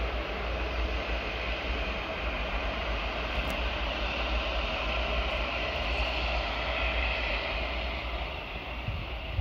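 Jet airliner's engines running as it moves slowly on the airfield: a steady, even whooshing noise that eases off slightly near the end.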